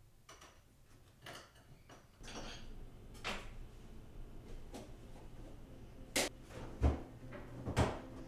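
Kitchen handling noises: a knife cutting through a sandwich on a plate, then scattered short clicks and knocks. The loudest are a sharp knock about six seconds in, a low thump just after it and another sharp knock near the end.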